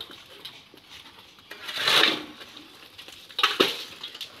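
A steel shovel scraping through wet concrete mix, then a sharp metallic clank about three and a half seconds in as it strikes a steel pan while loading it with concrete.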